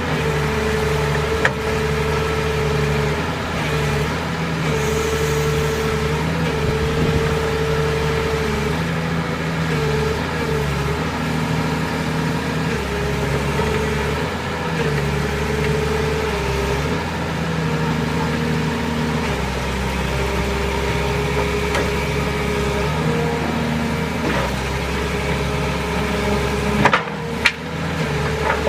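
Excavator diesel engine running steadily, its note stepping slightly up and down every few seconds. Two sharp knocks come near the end.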